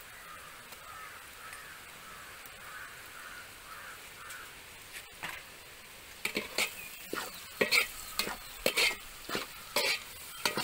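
Chopped onions, shallots and green chillies sizzling steadily in oil in a stainless steel pot. From about six seconds in, a metal slotted spoon scrapes and clinks against the pot in quick irregular strokes as the mix is stirred.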